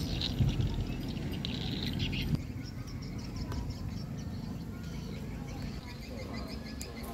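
Rural outdoor ambience: small birds chirping over a steady low rumble. The background changes abruptly about two and a half seconds in.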